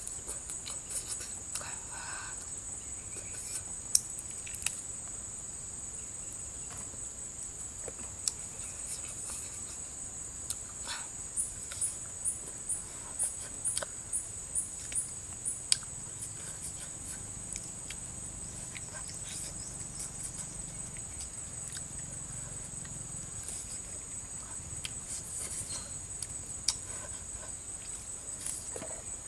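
A steady high-pitched drone of insects in the background, with scattered sharp clicks and smacks of eating: tearing grilled chicken apart by hand and chewing, including a quick run of clicks about two a second near the middle.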